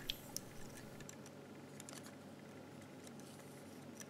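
Faint clicks and light ticks of small plastic microscope parts handled in the hands: a few clicks near the start, then sparse quiet ticks.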